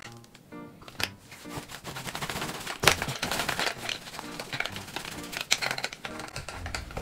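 Sticky lint rollers rolled over a cotton chef's jacket and hat, giving irregular crackling clicks as the adhesive peels off the cloth, with one sharp click nearly 3 seconds in. Quiet background music plays under it.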